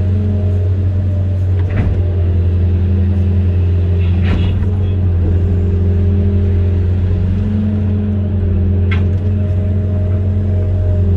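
Amphibious excavator's diesel engine running steadily at a constant low pitch, with a few short knocks or clanks about two, four and nine seconds in.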